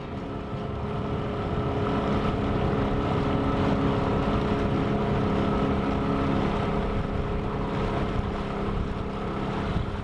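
A boat's engine running steadily, a constant drone with wind and water noise, growing louder over the first couple of seconds and then holding.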